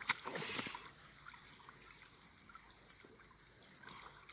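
Water splashing and sloshing as a landing net and keepnet are handled in shallow river water. A sharp knock comes just after the start amid the first splashes, quieter trickling follows, and splashing picks up again near the end.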